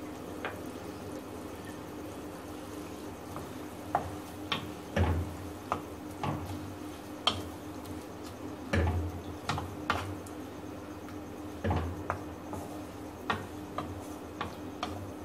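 Wooden spatula stirring and tossing minced meat and green capsicum in a non-stick wok: irregular scrapes and taps against the pan, with three heavier knocks spread through, over a steady low hum.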